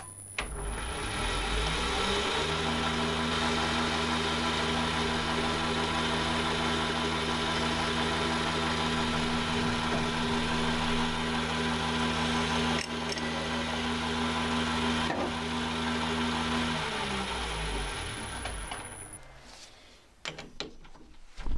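Emco Maximat V10-P metal lathe, its motor run from a variable-frequency drive. It spins up with a rising hum, runs steadily with a high thin whine above, then winds down and stops near the end, followed by a few light clicks.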